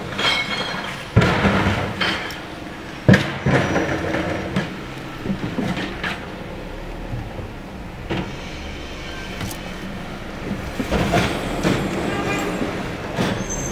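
Rear-loading recycling truck running at the curb while recycling carts are tipped into its hopper: two sharp bangs in the first few seconds and smaller clatters of carts and recyclables, over the steady rumble of the truck's engine and a whine from its hydraulics.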